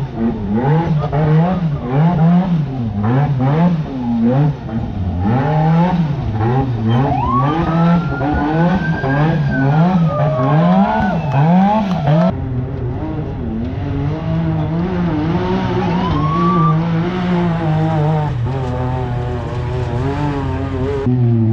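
Race UTV engines revving hard in short, repeated bursts as they crawl and climb over rocks. A high whine glides up and down over the engine about a third of the way in.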